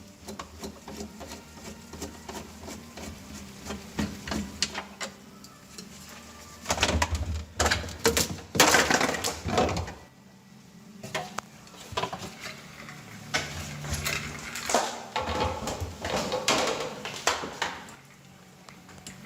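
Plastic refrigerator panels and parts knocking, clicking and rattling as they are unscrewed and pulled out by hand around an iced-up evaporator fan, with two busier stretches of clattering about seven and fifteen seconds in.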